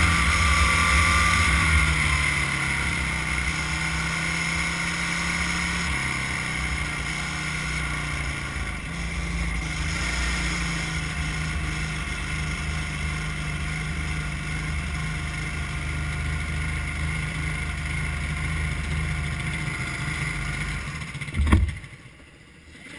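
Kart engine heard from the driver's seat, with wind on the microphone. It eases off after about two seconds and runs steadily at low speed, then a sharp knock comes near the end and the engine stops.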